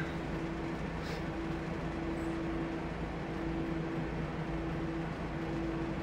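Steady low hum with a faint held tone, and a faint click about a second in.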